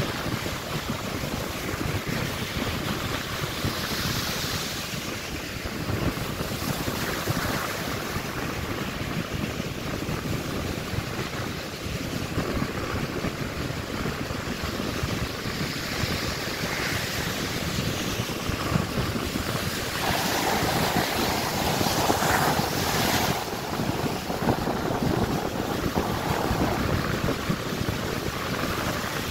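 Ocean surf breaking and washing up a sandy beach, with wind buffeting the microphone in a low rumble. The surf swells louder about two-thirds of the way through as a bigger wave breaks.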